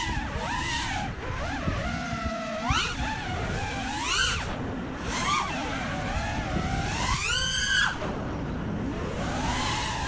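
FPV freestyle quadcopter's T-Motor F60 Pro V 2020kv brushless motors and Gemfan props whining on 6S, the pitch swooping up and down with the throttle. Three times the whine climbs steeply as the throttle is punched.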